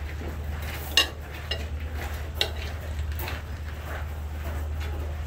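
Metal knives and forks clinking and scraping on ceramic plates as chicken is cut up, with a few sharp clinks, over a steady low hum.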